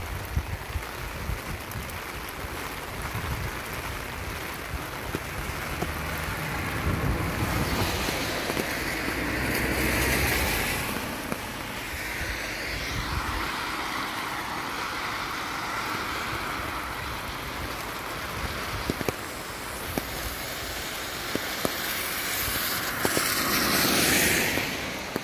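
Two vehicles passing on a wet road, each a swelling and fading hiss of tyres through water, one about ten seconds in and another near the end, over steady rain and wind rumbling on the microphone.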